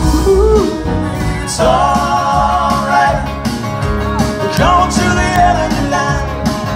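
Live band playing through a PA: electric bass, drum kit and acoustic guitar, with a singer.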